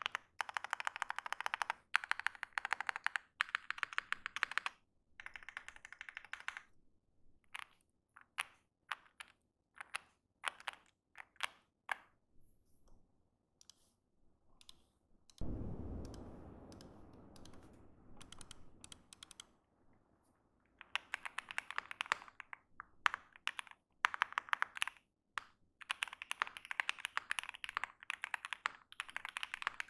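Typing on a Mr. Suit mechanical keyboard with Tangerine linear switches and GMK keycaps: fast runs of keystroke clacks, thinning to slow single keystrokes in the middle. About halfway through, a low thud fades out over a few seconds, and then fast typing resumes.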